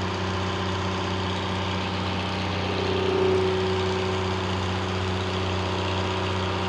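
An engine running steadily at an even idle, with a brief higher tone coming in about three seconds in.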